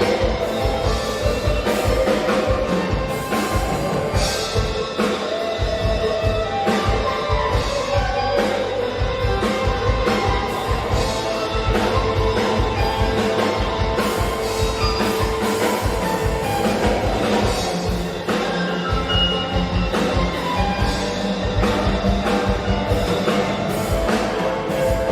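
Instrumental band music with a steady drum-kit beat, bass and guitar, and two sasandos, the plucked bamboo tube zithers of Rote island, playing the melody.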